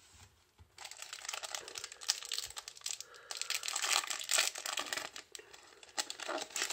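Foil trading-card booster pack wrapper crinkling as it is torn open. The crackling starts about a second in and runs on without a break.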